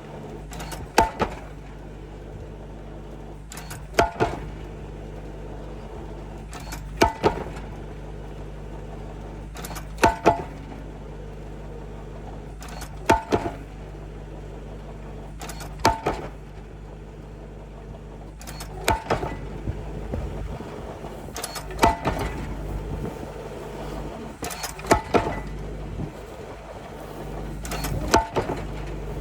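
Pile-driving hammer striking a foundation pile about once every three seconds, each blow a sharp clang with a quick double knock, over the steady hum of the rig's engine.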